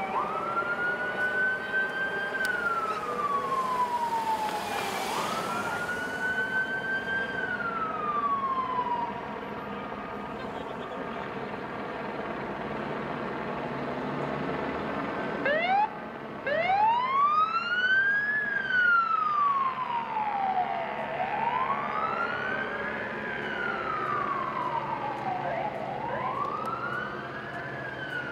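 Emergency vehicle siren wailing, its pitch sweeping slowly up and down over a few seconds at a time. It drops out for several seconds midway, then starts again and wails on.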